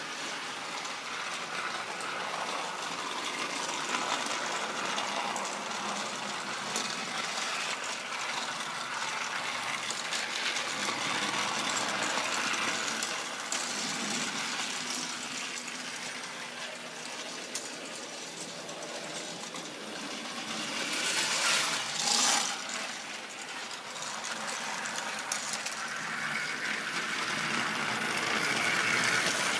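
Battery-powered Trackmaster toy train engine running on plastic track: a steady small electric motor whirr with rattling, briefly louder about two-thirds of the way through and again near the end.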